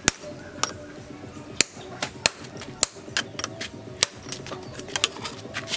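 Hammer blows on a chisel held in tongs across red-hot chainsaw-bar steel on an anvil, hot-cutting the blade. A quick, irregular run of sharp metallic strikes that come faster in the second half, some with a short high ring.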